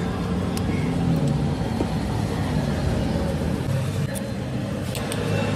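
Steady low rumble of background street noise, with a few faint clicks.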